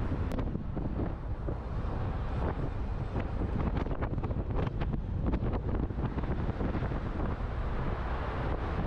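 Wind buffeting the camera microphone: a steady low rumble with rushing noise, and a handful of short clicks in the middle.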